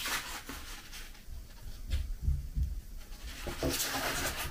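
Handling of a plastic takeaway sushi tray as its lid is opened and moved aside: light plastic clicks and rubbing, with a few soft thumps in the middle.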